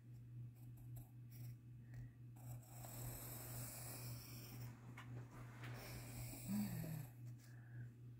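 Pencil scratching on sketchbook paper in a few strokes, over a steady low hum that pulses evenly throughout.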